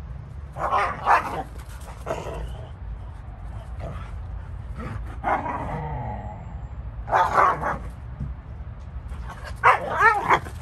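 Huskies barking and yipping in short bursts every couple of seconds while they tussle, with one longer call about five seconds in that falls in pitch.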